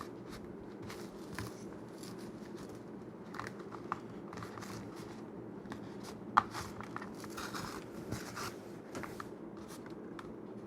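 Small clicks, crackles and scrapes of a Kydex holster being handled and bent, over a steady low hum, with one sharp click about six seconds in.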